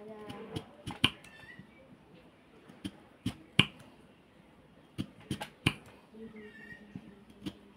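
Kitchen knife slicing a raw potato into thin chips by hand, each slice giving a crisp snap. There are about ten sharp snaps at uneven intervals, several coming in quick twos and threes.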